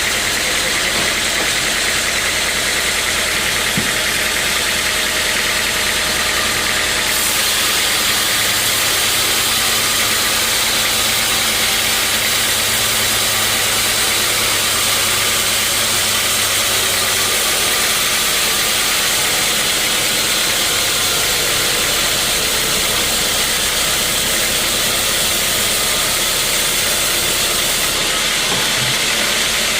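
Sawmill saw running steadily through teak wood: a loud, even hiss over a motor hum. The hiss changes about seven seconds in and again near the end.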